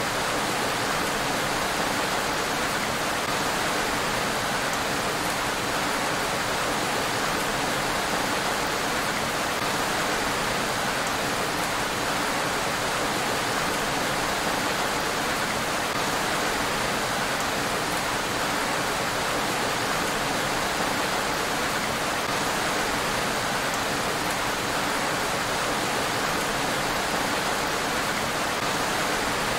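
Steady rain falling on a road, an even, unbroken hiss with no thunder claps.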